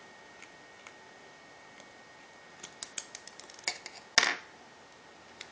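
Small sharp clicks and taps of a small tool working on an iPhone 3GS's parts and screws, quickening about two and a half seconds in, with one louder clack about four seconds in.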